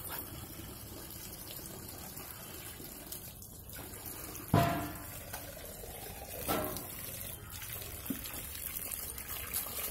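Tap water running steadily into a plastic bucket. Two louder bumps come about four and a half and six and a half seconds in.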